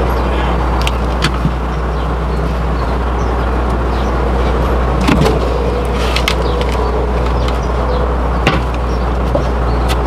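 A steady low rumble throughout, with a few short sharp knocks of wood.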